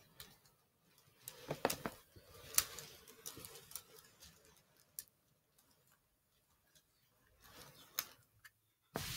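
Scattered small plastic clicks and light knocks as HO scale model train cars and a locomotive are handled and set onto the track by hand.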